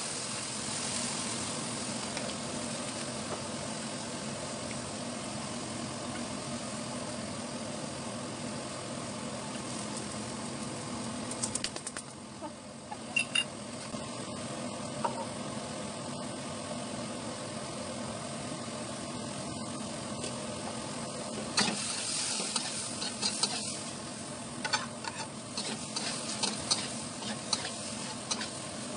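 Squid and green chilies stir-frying in a metal wok: steady sizzling, with the metal spatula scraping and clinking against the wok in short spells about halfway through and again near the end.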